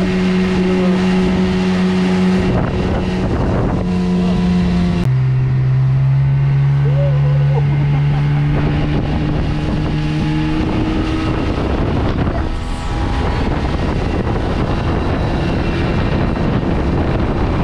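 Speedboat's outboard motor running at speed, with water spray rushing past the hull and wind on the microphone. The engine note drops suddenly about five seconds in and later climbs higher again.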